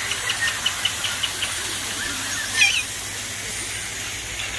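Small waterfall splashing into a pond with a steady rush, and birds calling over it: a quick run of short chirps in the first second and a half, and one louder call about two and a half seconds in.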